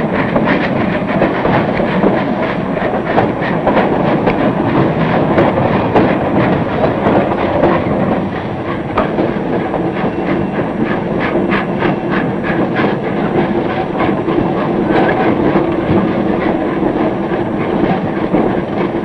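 Narrow-gauge steam train running past, its wheels clicking over the rail joints in a dense, steady clatter with a hiss of steam. A steady tone joins the clatter about halfway through.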